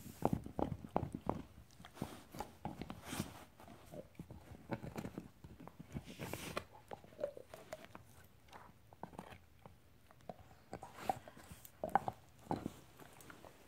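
Yellow Labrador puppy gnawing an antler: irregular knocking and scraping of teeth on hard antler, busiest at the start and again near the end.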